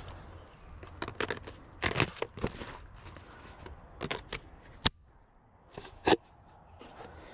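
Dry branches and brush crackling and snapping in short, irregular bursts, with a sharper snap about six seconds in.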